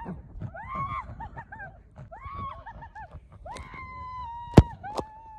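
People yelling and whooping in repeated rising-and-falling calls while riding a ring tube down an enclosed tube water slide. Two sharp knocks come near the end, the first the loudest.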